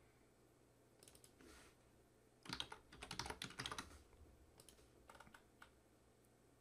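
Faint typing on a computer keyboard: a few key clicks, then a quick dense run of keystrokes in the middle, then a few scattered taps.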